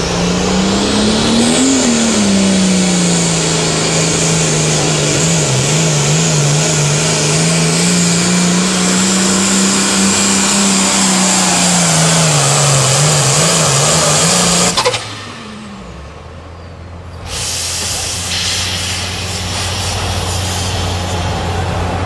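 Hot Farm class pulling tractor, a modified Case IH with a turbocharged diesel, at full throttle pulling a weight-transfer sled. The engine's pitch rises over the first two seconds, then holds nearly steady with small wavers, over a high whine. The sound cuts off sharply about fifteen seconds in, and from about seventeen seconds the engine runs at a lower, steady pitch.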